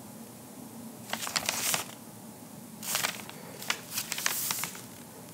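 Sheets of paper rustling as they are handled and leafed through, in a few short bursts.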